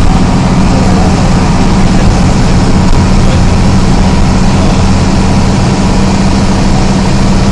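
Isuzu MT 133RHD bus's diesel engine running steadily, a low, even drone with no change in pitch.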